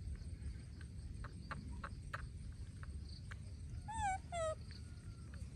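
Baby monkey giving two short, high cries close together, about four seconds in, the second falling in pitch; a few faint clicks come before them.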